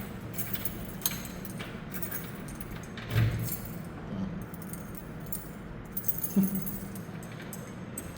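A bunch of keys jingling and clicking in a door lock as someone tries to unlock the door, with a couple of duller knocks about three and six seconds in. The key is not working easily.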